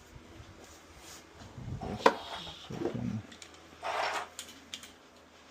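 Handling noise from a studio microphone boom arm being assembled: a sharp click about two seconds in, then a brief rustle about four seconds in.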